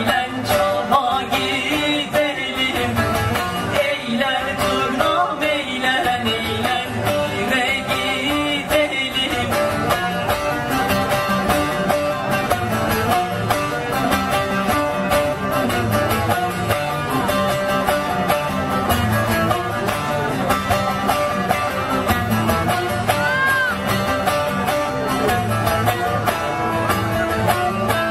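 Live semah music played on plucked long-necked lutes (bağlama), with a singing voice.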